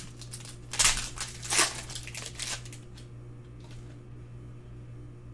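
Plastic foil wrapper of a Prizm Mosaic basketball card pack crinkling and tearing as it is ripped open by hand, in two loud bursts about one and one and a half seconds in, then a softer rustle.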